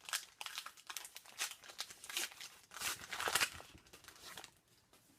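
Plastic wrapper of a hockey card pack crinkling and tearing as it is opened, a rapid run of crackles that is loudest about three seconds in and dies away near the end.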